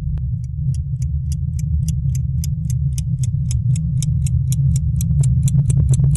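Clock ticking, about three to four ticks a second at first and speeding up toward the end, over a loud low drone.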